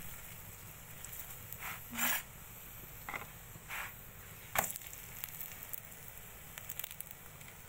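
Aloo paratha cooking on a tawa: a few short scrapes and taps as a spatula presses it and it is turned over, the sharpest tap about four and a half seconds in, over a faint sizzle.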